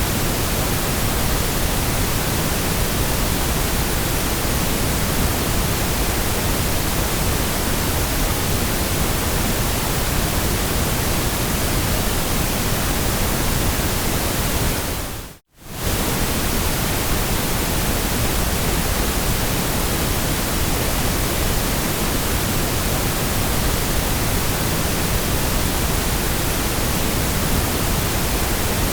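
Steady synthetic white noise, an even hiss across the whole pitch range. About halfway through it fades out to brief silence and straight back in.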